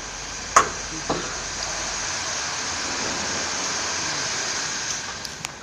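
A steady hiss, with a sharp clink of a spanner against the steel frame about half a second in and a softer clink half a second later; a few faint ticks near the end.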